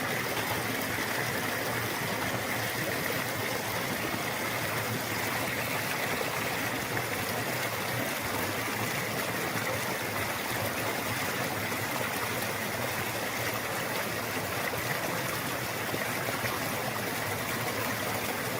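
Running water of a stream, steady and unbroken, with no pauses or changes.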